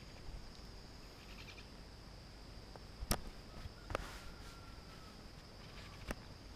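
Insects buzzing in a steady high-pitched drone, with three sharp clicks about three, four and six seconds in.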